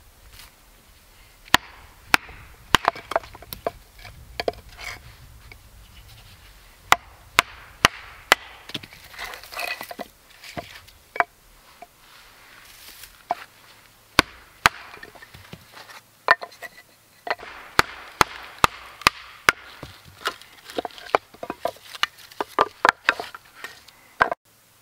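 Hatchet splitting short rounds of firewood on a stump chopping block: irregular sharp knocks of the steel biting into wood, with a quicker run of strikes near the end.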